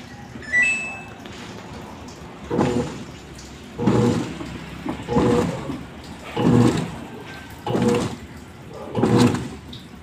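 Samsung automatic washing machine agitating its load: the wash motor swishes the water and laundry back and forth in even strokes about every 1.3 seconds, over a steady rush of water filling the tub. A short high tone sounds near the start.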